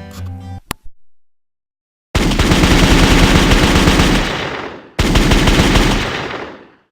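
Two long bursts of automatic gunfire, about three seconds and then two seconds, each trailing off as it fades.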